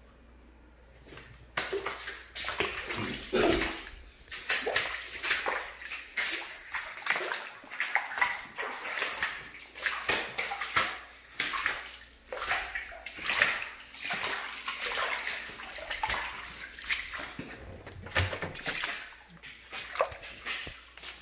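Water sloshing and splashing in uneven bursts on a flooded floor, starting about a second and a half in.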